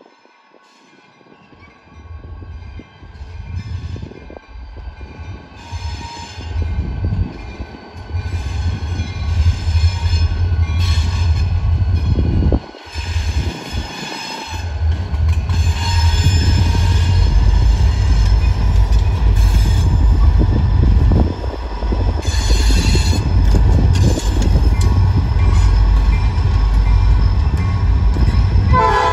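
Two diesel locomotives leading a freight train approach and pass, their engine rumble building from faint to loud and staying loud through the second half. High steady tones come and go above the rumble.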